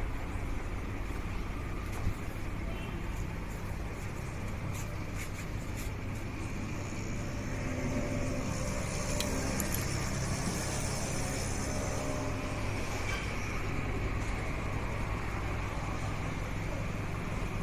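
Steady motor-vehicle engine noise, swelling a little in the middle, with a few faint clicks early on.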